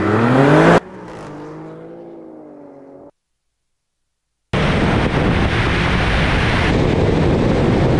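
Two performance SUVs, a V6 Alfa Romeo Stelvio Quadrifoglio and a V8 Porsche Cayenne GTS Coupé, launching at full throttle, their engine pitch rising fast until it cuts off abruptly under a second in. A fainter engine sound fades away, a brief silence follows, and from about four and a half seconds there is loud, steady rushing wind and engine noise from a camera on a car at speed.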